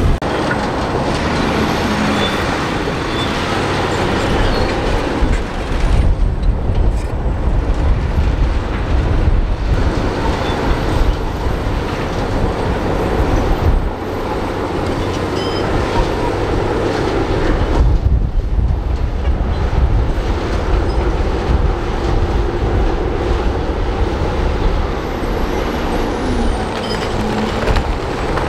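Heavy diesel dump trucks running with their tipper beds raised, soil and rock sliding out of the beds onto the ground: a loud, continuous low noise that changes abruptly a few times.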